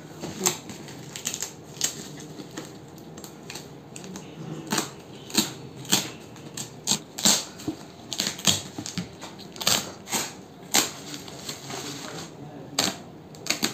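Plastic packaging being cut and torn open: woven plastic sacking and tape crinkling and ripping as a parcel is unwrapped, in irregular sharp crackles and rips.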